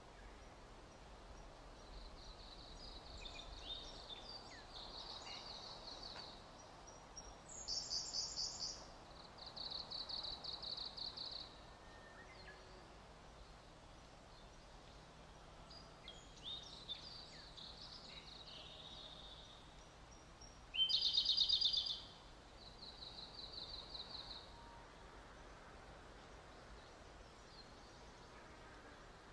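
Small songbirds chirping, with several short rapid trills over a faint steady hiss; the loudest trill comes about three-quarters of the way through.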